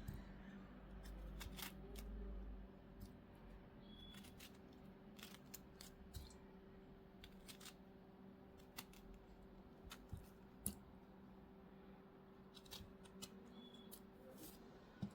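Near silence with a faint steady hum and scattered light clicks and taps, the sharpest one about ten and a half seconds in.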